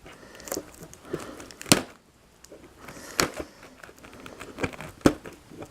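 Packaging being picked at and pulled off a VHS cassette by hand: scattered crinkling and rustling with a few sharp clicks or snaps.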